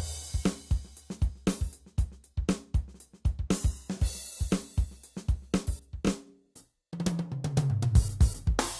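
Yamaha keyboard demo of a drum kit groove played on the original Tyros's drum voices. It stops about six and a half seconds in, and after a short gap the passage starts again on the Tyros 2's drum voices, opening with a deep falling tone under the drums.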